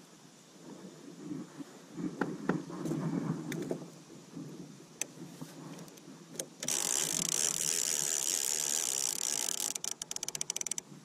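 Conventional (level-wind) fishing reel whirring steadily for about three seconds, then clicking rapidly near the end, with a few knocks of handling on the rod and boat beforehand.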